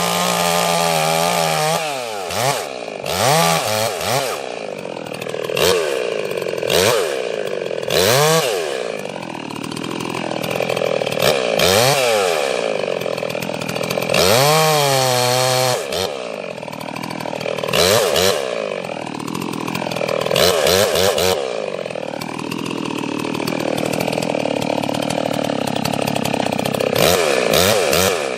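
Ported Stihl 036 chainsaw running hard while felling trees, its engine revving up and down again and again as the throttle is opened and eased off.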